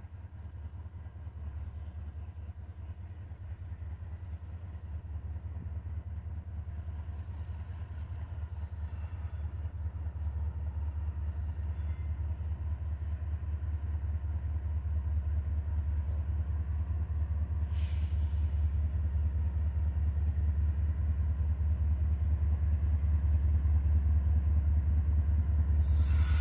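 Approaching diesel locomotive: a low engine rumble that grows steadily louder as it nears.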